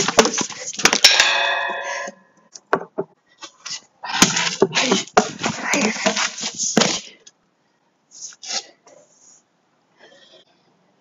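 A walking cane striking plastic traffic cones: a sharp crack as the cane hits, then the hollow cone clattering and ringing as it is knocked across concrete pavement, with a second longer stretch of clattering and scraping about four seconds in.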